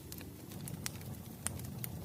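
Wood fire burning with a low rumble of flames and a few sharp crackles and pops from the burning logs, three of them in under two seconds.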